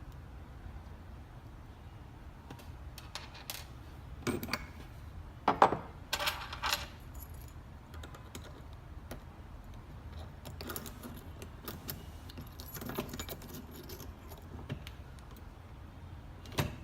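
Scattered metal clicks and clinks of an Allen key and a key being worked in a smart door lock's mechanical key override, with a cluster of louder knocks and clinks about four to seven seconds in and a sharp click near the end.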